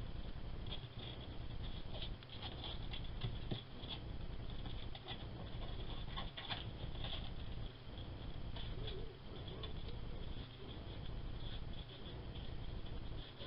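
Faint, irregular small clicks and scratches from a juvenile Natterer's bat moving about on fabric, over a steady low hum and high whine.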